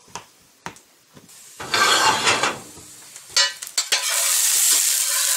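A few sharp knocks and a metal spatula scraping through diced sweet potatoes in a cast iron skillet, then a steady sizzle of the potatoes frying from about four seconds in.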